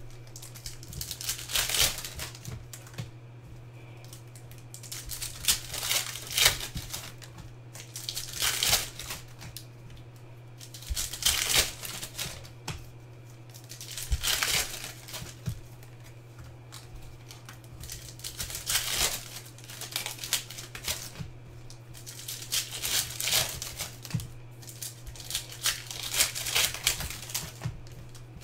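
Trading card packs being unwrapped by hand: plastic shrink-wrap and foil pack wrappers crinkling and tearing in repeated bursts every few seconds, over a steady low hum.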